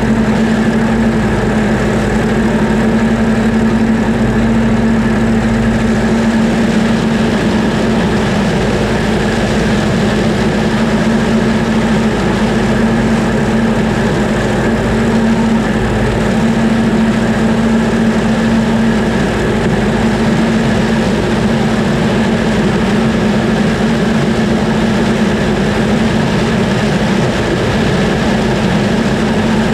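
Heavy farm machinery engine running steadily at a constant speed, a continuous low drone with no change in pitch.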